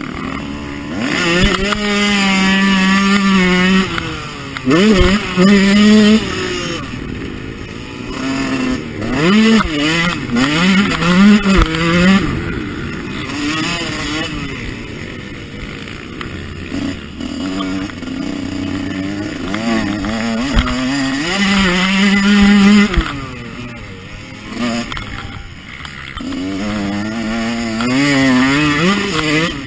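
Husqvarna CR 125 two-stroke single-cylinder motocross engine, heard from the rider's chest, revving hard and dropping off again and again, its pitch climbing and falling with throttle and gear changes. Bursts of held full throttle lasting a second or two alternate with quieter off-throttle stretches.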